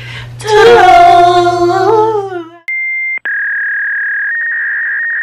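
Two women call out a long, sing-song "Toodles!" together for about two seconds. It then cuts to a steady electronic beep tone, a brief higher tone followed by a lower one held for about three seconds.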